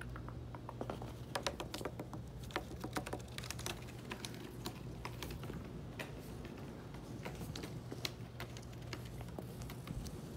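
Kittens playing on a rug, their paws and claws scrabbling and tapping at a toy wand: many light, irregular clicks and scratches, over a faint steady low hum.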